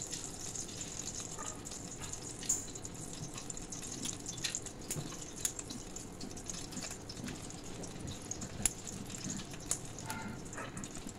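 Hot mustard oil sizzling in a kadai around bay leaves and dried red chillies, with scattered sharp crackles and pops as whole spices are dropped in for tempering.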